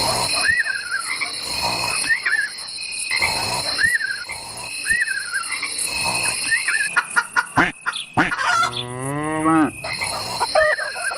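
Farmyard animal calls over a steady high insect drone. Short rising-and-falling calls repeat about every second and a half, and one long, low, bending call comes about three-quarters of the way through.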